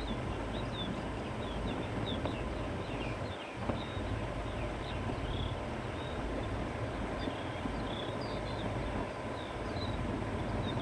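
Steady wind blowing across open grassland and fields, a continuous rush with a low rumble underneath, while small birds chirp briefly and often throughout.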